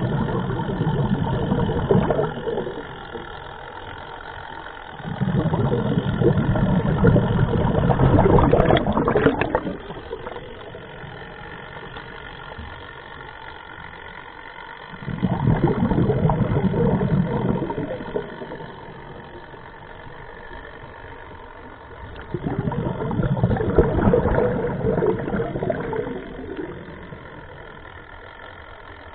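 Scuba diver's own breathing through a regulator, heard close up underwater: four long exhalations of bubbles, each several seconds long, with quieter stretches between them.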